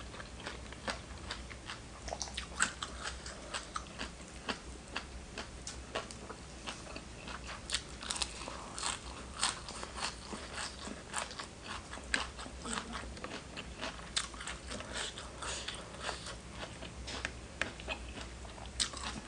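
Close-miked eating sounds: irregular crunchy bites and chewing of spicy seafood papaya salad, many crunches a second, busiest in the middle stretch.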